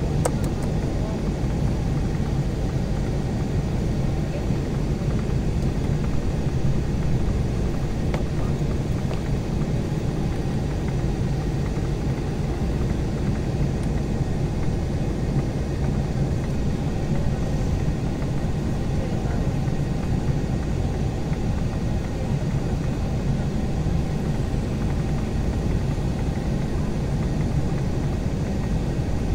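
Steady low rumble of an Embraer E175 regional jet heard from inside the cabin, its two General Electric CF34 turbofans running at an even, unchanging power.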